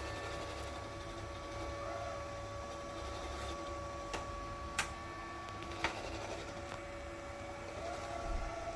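Robot vacuum cleaner running with a steady motor hum, broken by three short sharp clicks in the middle.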